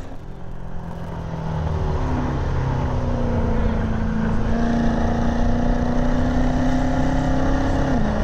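The Jeep Trackhawk's supercharged 6.2-litre V8 accelerating hard, its pitch climbing steadily through a gear. Near the end it drops abruptly at an upshift and starts climbing again.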